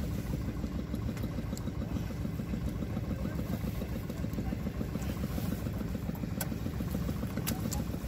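Small fishing boat's engine idling steadily, with a few faint clicks in the second half.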